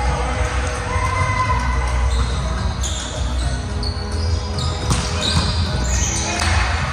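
A volleyball being hit and bouncing on the court, with two sharp smacks near the end and short high sneaker squeaks on the floor. It echoes in a large gym over a steady low hum and distant voices.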